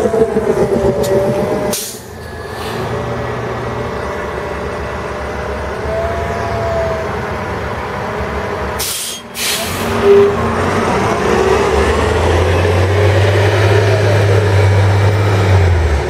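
Road traffic on a wet street in a storm: vehicles passing with a steady hiss. In the last few seconds a heavy vehicle's engine runs with a strong low hum.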